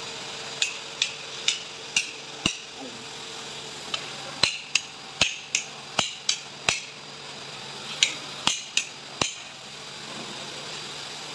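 A hammer tapping on a metal double-acting valve block during assembly: about eighteen sharp strikes in three runs of two to three a second, with short pauses between the runs.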